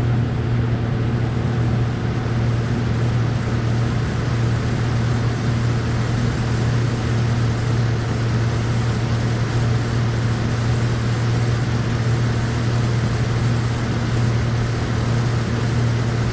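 5.3-litre V8 of a 2008 Chevy Trailblazer idling steadily, heard from beneath the truck during a test run just after an oil change.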